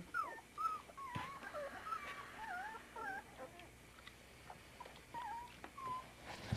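A litter of 24-day-old puppies whimpering: many short, high, wavering whines and squeaks, scattered throughout and sometimes overlapping.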